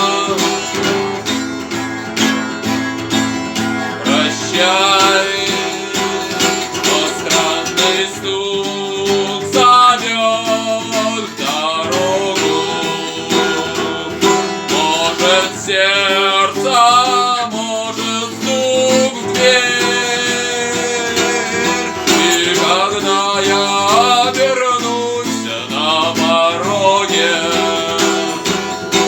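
Acoustic guitar playing a song, with a voice singing over parts of it.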